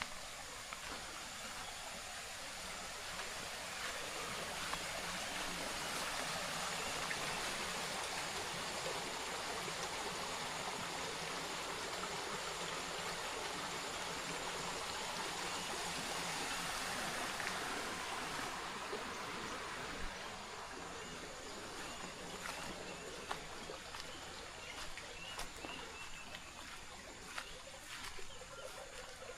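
Running water, like a small stream, swelling to its loudest for a stretch in the middle and fading again after about 18 seconds.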